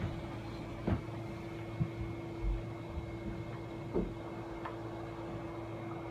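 Steady hum of a room air-conditioning unit running, with a few short soft knocks scattered through it.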